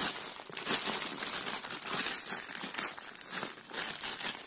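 Plastic courier mailer bag crinkling and crackling irregularly as hands handle it and pull its sealed end open.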